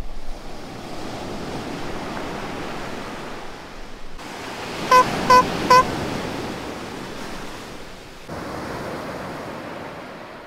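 Surf breaking on a beach, rising and falling, with wind on the microphone. About five seconds in come three short, loud beeps in quick succession.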